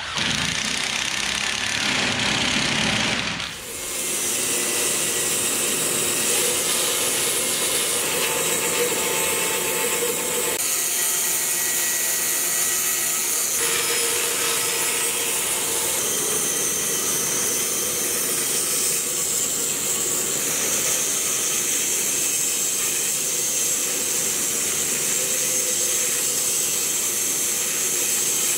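A hand-held power drill boring into the boat's wooden sponson for about three and a half seconds, then a large bandsaw running steadily as it cuts a thick timber plank. The sound of the cut shifts a couple of times as the plank is fed.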